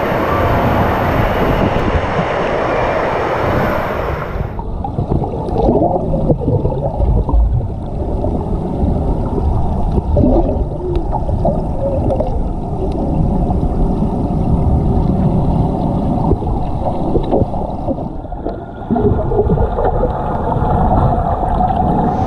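Rushing, splashing water of an indoor lazy river. About four and a half seconds in the sound goes underwater and turns into a muffled rumble with bubbling and gurgling as children swim past.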